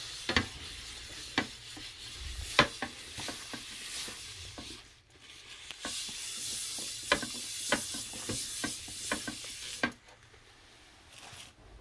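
Pork neck sizzling on a hot pan, with a steady hiss and fat spitting in sharp crackles and pops. The sizzle drops away about ten seconds in.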